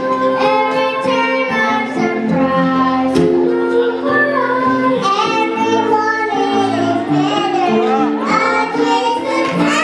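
Children singing a song into handheld microphones over backing music, solo voices taking the lines in turn.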